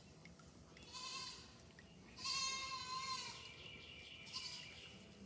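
Goats bleating: three calls, a short one about a second in, a long, loud one a little after two seconds, and a short one near the end.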